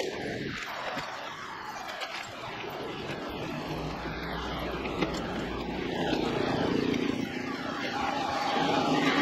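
Street traffic heard from a moving bicycle: a steady rush of traffic and rolling noise, with a motor vehicle's engine drone growing louder over the last three seconds.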